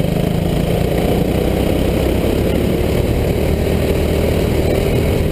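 Go-kart engine heard from the kart itself, running fairly steadily as it laps the track.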